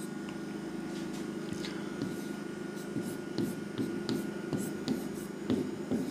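Pen writing on the glass screen of an interactive display: short ticks and taps as letters are stroked out, more frequent in the second half, over a steady low hum.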